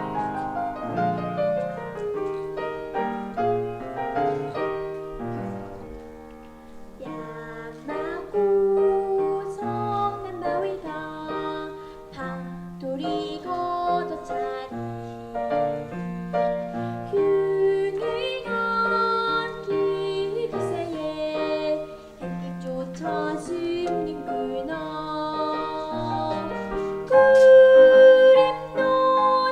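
Piano-led accompaniment of a children's song.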